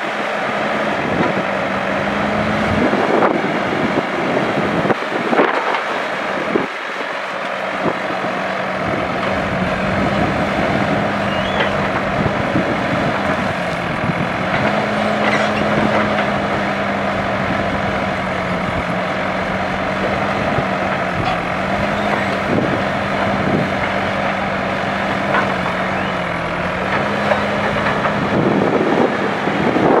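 ACE backhoe loader's diesel engine running under load while the backhoe arm digs, with a steady hum that dips and rises a little in pitch as the hydraulics work. Scattered knocks from the bucket and arm.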